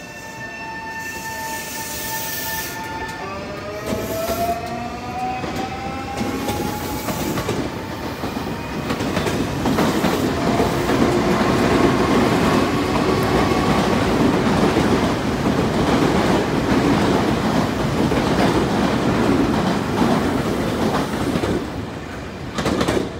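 Nankai 8300 series electric train pulling out and accelerating: the inverter-driven traction motors give a steady whine for about three seconds, then several tones glide upward in pitch. Loud wheel-on-rail rumble and clattering follow as the cars pass close by, dropping away near the end.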